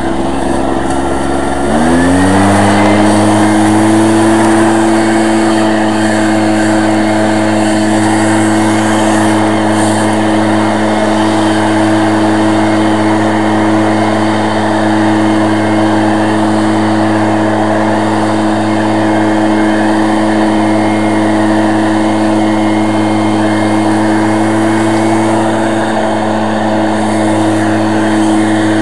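Echo PB-413H leaf blower's two-stroke engine revving up from idle about two seconds in, then held steady at full throttle with a constant rush of air.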